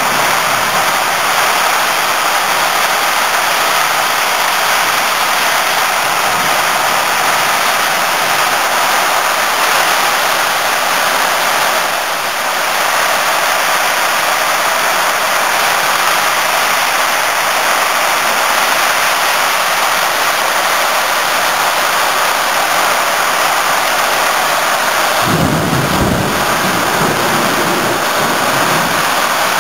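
Heavy tropical rain pouring down in a steady, loud hiss on foliage and roofs, with the wind thrashing the trees. Near the end a brief low rumble rises under the rain.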